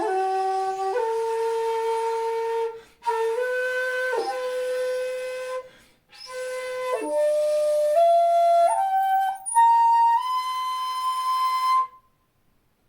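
Jinashi shakuhachi, a 2.0-shaku bamboo flute in C, playing a run of long held notes that step upward through its range, with a brief downward pitch bend about four seconds in. The playing stops about a second before the end.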